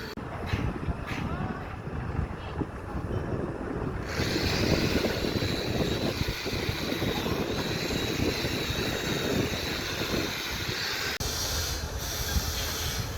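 Construction machinery running with a steady rumbling noise that changes abruptly about four seconds in and again near the end.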